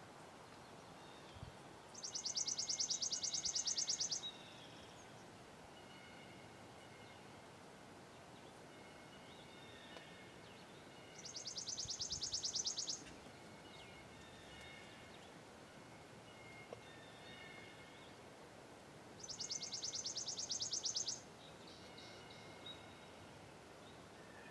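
A songbird singing a high, rapid, even trill about two seconds long, three times roughly eight seconds apart, with fainter chirps of other birds in between.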